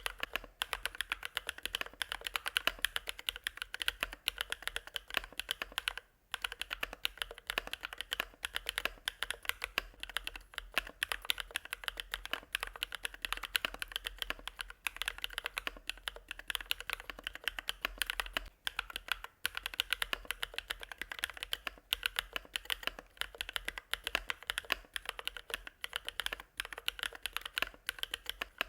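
Fast, continuous typing on a mechanical keyboard with fully hand-lubed Bsun Sunset Yellow linear switches: a dense stream of middle-to-low-pitched keystroke clacks, with a short pause about six seconds in.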